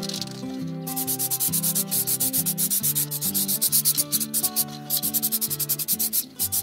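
Aerosol spray-paint can hissing as it is swept back and forth over flat steel parts. The hiss starts about a second in and breaks off briefly near the end, with background music underneath.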